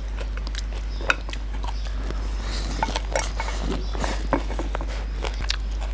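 Fingers mixing rice in a ceramic bowl, with scattered light clicks and taps against the bowl, sharpest about a second in and again near three and four and a half seconds in. A steady low hum runs underneath.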